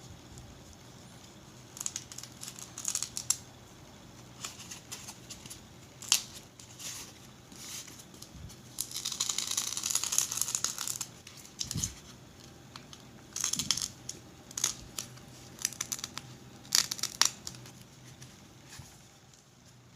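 Keyboard parts and their packaging being handled: crinkling and rustling with scattered small clicks and knocks, and a longer rustle about nine to eleven seconds in.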